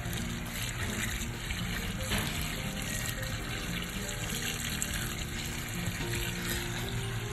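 Tap water running and splashing over leafy greens in a stainless steel colander as hands rub and swish them.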